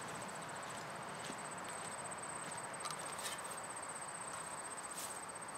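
Crickets trilling steadily at a high pitch over an even outdoor hiss, with a few faint clicks.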